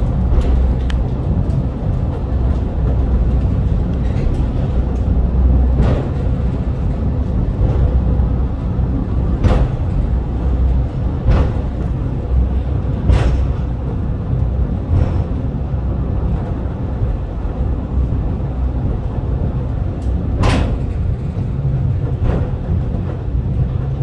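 Takao Tozan Railway cable car running downhill: a steady low rumble of the car on the track, with a sharp clack every few seconds at irregular spacing.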